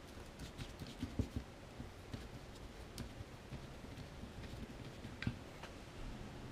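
Faint, irregular light clicks and taps of a plastic power-tool battery pack being handled and worked at with a hand tool.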